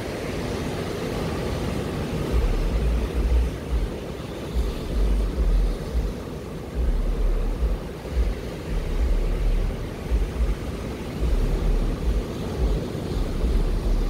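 Wind buffeting the microphone in irregular low rumbling gusts, over a steady rush of breaking surf.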